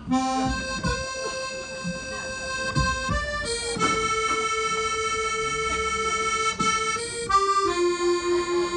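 Accordion playing long held notes, the pitch stepping to a new note every few seconds, like an introduction. A few low thumps sound underneath in the first three seconds.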